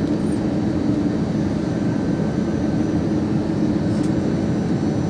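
Airbus A320 cabin noise on approach for landing: a steady rumble of engines and airflow heard from inside the cabin, with a constant low hum.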